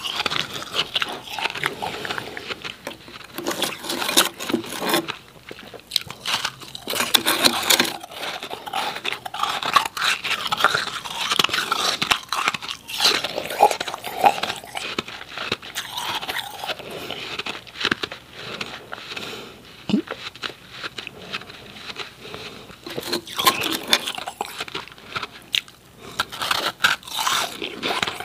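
Close-up crunching and chewing of powdery refrozen ice, many dense, irregular crunches with short lulls between mouthfuls.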